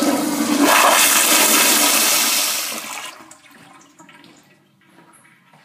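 Crane plumbing fixture flushing: a loud rush of water that dies down about three seconds in.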